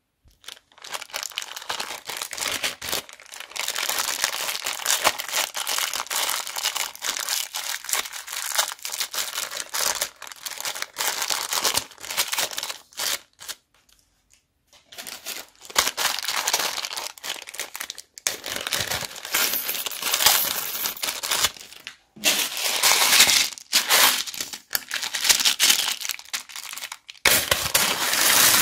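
Plastic bags crinkling and rustling in hand as bead and rhinestone add-ins are shaken out of them, in long spells of crackling broken by a few short pauses, the longest about halfway through.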